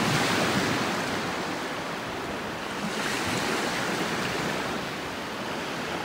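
Small waves washing on a pebble beach: a steady rushing that swells slightly near the start and again around three seconds in.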